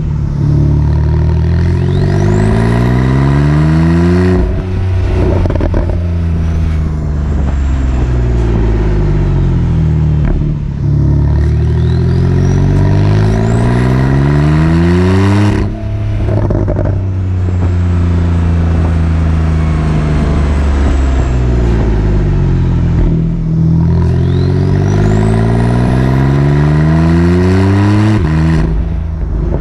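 Porsche 911 Carrera 4S (991.2) twin-turbo flat-six with sport exhaust, its revs climbing over a few seconds and then dropping sharply, three times, with steadier running in between. A faint high turbo whistle rises along with each climb.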